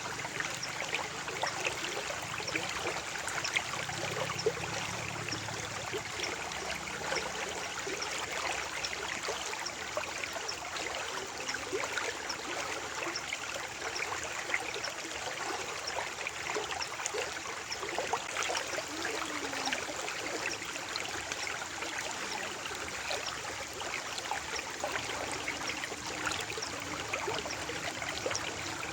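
Small stream of water flowing and trickling steadily, with many small splashes and gurgles.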